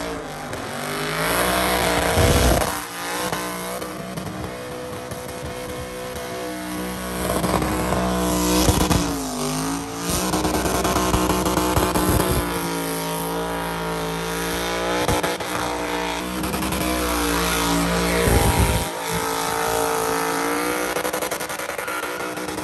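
Truck doing a burnout: its engine is held at high revs that keep rising and falling, with the rear tires spinning and squealing on the pad.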